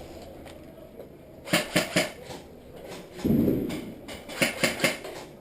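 Airsoft gunfire: a series of sharp snapping shots, a few about a second and a half in and a quick string of about five a second near the end, with a brief rustle in between.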